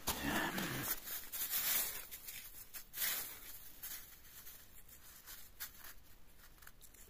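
Close rustling and scratching as fingers rub wet soil off a freshly dug coin, with a few sharp crackles. It is busiest in the first three seconds, then quieter.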